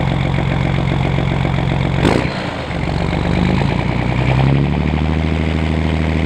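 Diesel tractor engine running steadily. About two seconds in there is a short sharp clack, after which the engine note dips and then climbs back up before settling to a steady pitch.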